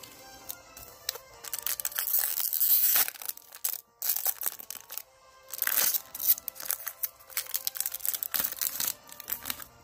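Foil trading-card booster pack wrapper crinkling as it is slit open with a blade and torn apart by hand. The crinkling comes in loud bursts, strongest a couple of seconds in and again around six seconds.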